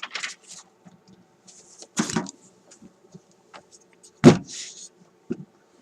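Knocks and scrapes of a vacuum-tube radio chassis being handled and turned over on a workbench, with the loudest thump a little over four seconds in.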